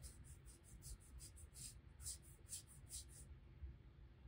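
Faint, scratchy strokes of a watercolor brush on watercolor paper, about a dozen short strokes at an uneven pace, stopping a little past three seconds in.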